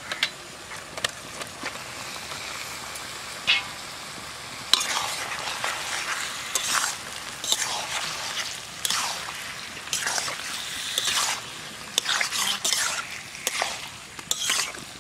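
Sliced onions sizzling in mustard oil in a metal kadai. About five seconds in, raw mutton pieces go in and are stirred with a metal spatula, scraping against the pan over the frying.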